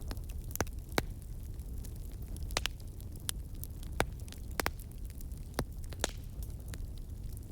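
Wood fire crackling in a fireplace: irregular sharp pops and snaps, about a dozen, over a steady low rumble.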